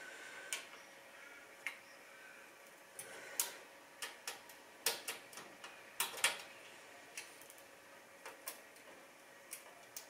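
Screwdriver tightening motherboard screws into the case's standoffs: scattered small metallic clicks and taps at irregular intervals.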